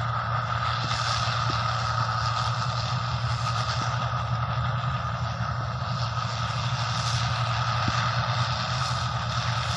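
Rice combine harvester running steadily: a low engine hum with a constant higher-pitched whine from the machinery over it.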